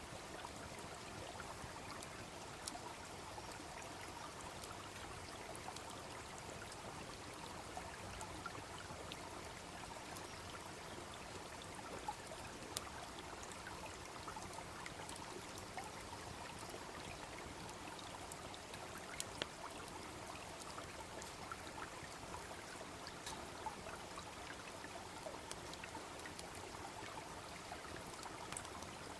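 A small brook babbling steadily, with a few sharp pops from a wood campfire here and there.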